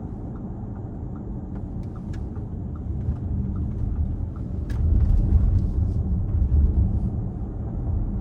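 Inside the cabin of an Audi Q4 e-tron electric SUV at speed: steady tyre and road rumble with a low drone underneath. The owner takes the drone for a buzzing vibration from the front of the car that appears above 55 mph. The rumble grows louder about five seconds in.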